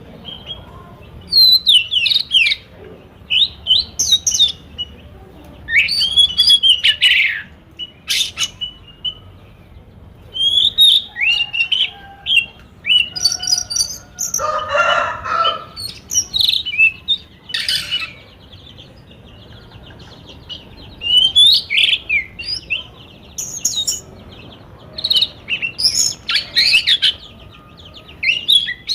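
Birds chirping and calling in quick runs of short notes that slide in pitch, with a harsher, lower sound about halfway through.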